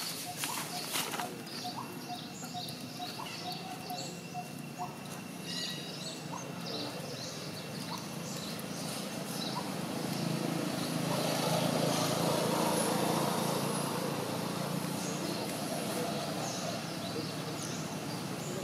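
Outdoor ambience of small birds chirping, with a run of short, evenly spaced pips in the first few seconds. A broad noise swells up around the middle and fades again.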